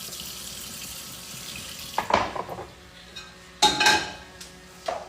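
Kitchen tap running into a sink, shut off about two seconds in, then kitchenware clattering in three loud knocks, the loudest just before four seconds.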